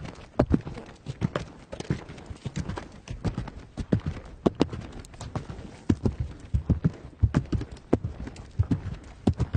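Horse hooves galloping: a continuous run of sharp hoof strikes in quick groups, several per second, steady throughout.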